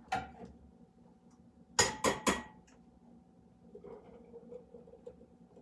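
A metal strainer and spoon clinking against a glass jar at the counter, strained walnut milk being handled: a single knock at the start, then three sharp clinks in quick succession about two seconds in.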